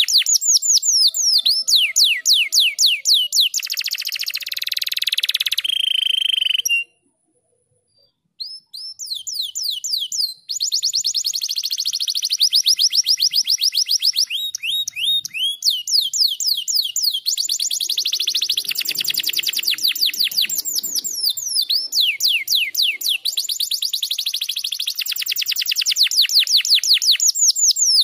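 Domestic canary singing, in fast trills of repeated downward-sweeping notes with a buzzy rolling phrase a few seconds in. The song breaks off suddenly for about a second and a half, then picks up again in more rapid trills.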